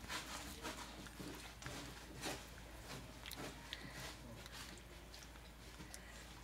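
A litter of young puppies moving about and play-biting. It comes through as faint scuffling and scattered small clicks.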